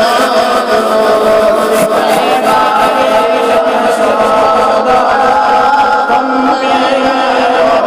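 Devotional naat singing: a male voice chanting with a choir-like vocal drone behind it, on long held notes.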